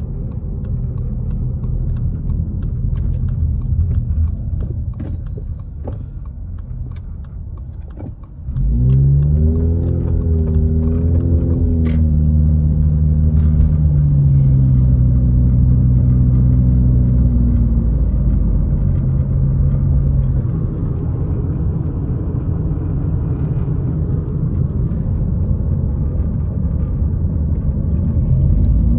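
Steady low rumble of a car driving on wet pavement, heard from inside the cabin. About eight seconds in it gets louder and a humming engine note comes in, wavering at first and then settling.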